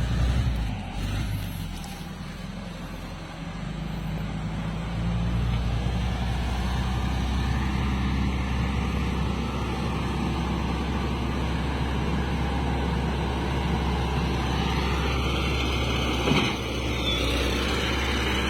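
Diesel engine of a motor grader running under work, a continuous low rumble that settles to a steady level after a few seconds. One brief knock sounds near the end.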